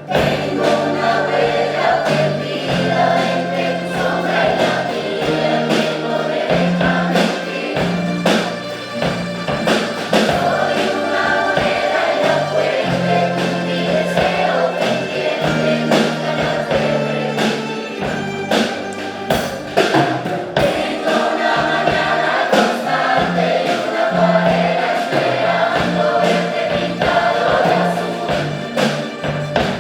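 A choir singing with instrumental accompaniment: held bass notes that change pitch every second or two, and regular drum strikes.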